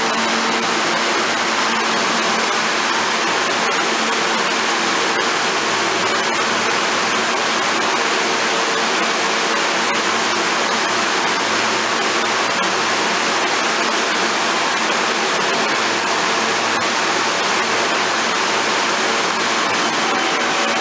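New York City subway train moving through the station: a steady, loud rush of wheel-on-rail noise with a faint hum underneath.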